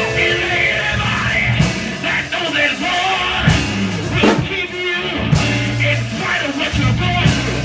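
Live band music with drums and bass playing a steady beat, with a man's voice through a microphone over it.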